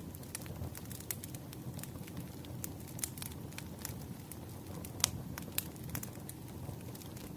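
Wood fire crackling: frequent sharp pops and snaps over a steady low rumble of the burning, with the loudest pop about five seconds in.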